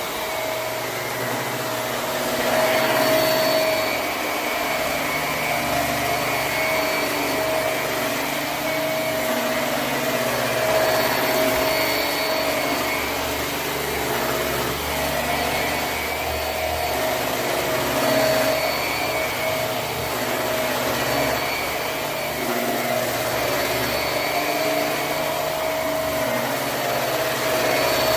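Hoover High Performance Swivel upright vacuum running on carpet: a steady motor whine over rushing suction noise, its level swelling and easing a little as it is worked back and forth.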